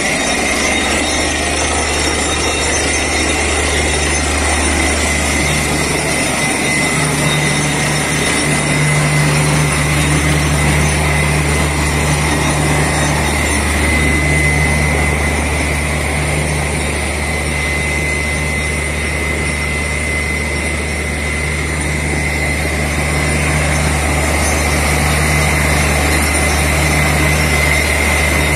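Truck-mounted borewell drilling rig running steadily: a continuous low engine drone with a steady high whine over it.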